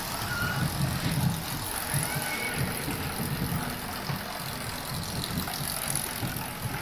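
Steady low rumble of running machinery, with a few faint short high squeaks.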